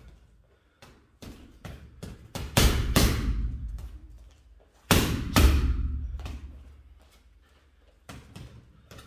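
Boxing gloves punching a hanging heavy bag. A quick run of lighter punches comes first, then two pairs of hard punches about two seconds apart, each trailing off over a second or more. After a short pause, a few lighter punches come near the end.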